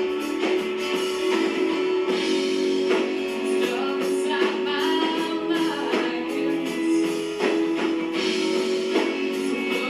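Rock band playing a slow song live: guitar over drums, with little low end.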